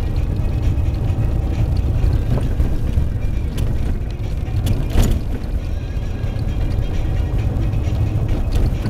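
Car driving over a rough, potholed street, heard from inside the cabin as a steady low rumble, with one sharp knock about five seconds in as the car jolts over a bump.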